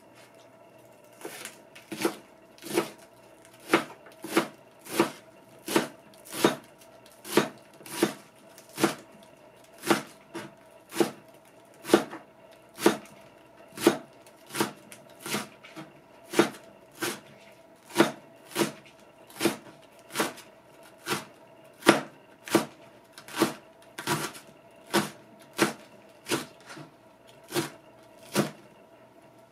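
Kitchen knife chopping a leek on a plastic cutting board: even, unhurried strokes about one and a half a second, each a sharp knock of the blade on the board. A faint steady hum runs underneath.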